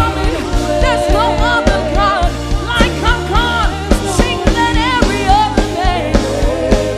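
Live gospel worship music: a band with drum kit and bass playing a steady beat while singers hold long, wavering sung notes.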